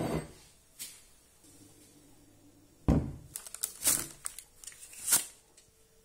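Kitchen handling noise as the adjustable metal cake ring and its parchment collar are taken off a set cheesecake: a rub and a click, then about three seconds in a sharp thud followed by a run of light clatters and paper rustles for about two seconds.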